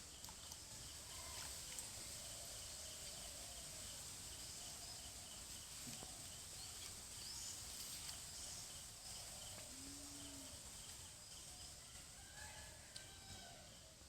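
Faint rural outdoor ambience: a steady high insect drone with an evenly pulsing trill. A few short, scattered animal calls sound over it, one lower call about ten seconds in.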